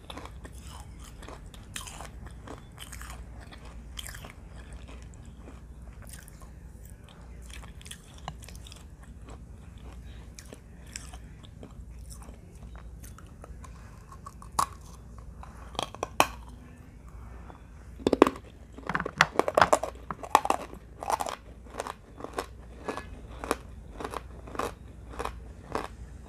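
Close-up crunching and chewing of dry edible clay: a steady run of sharp, separate crunches, growing louder and more crowded about two-thirds of the way through.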